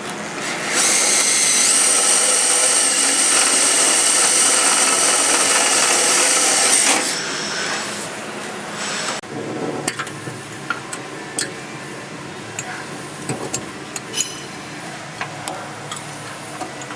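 Power drill running for about six seconds while drilling through the rubber latch and bracket for rivet holes, its whine stepping up in pitch near the two-second mark. It stops, and light clicks and knocks of parts being handled follow.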